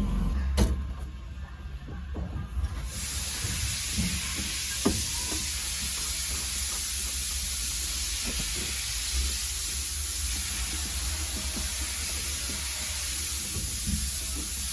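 A steady, even hiss switches on abruptly about three seconds in, over a low hum, with a few faint clicks and knocks from handling.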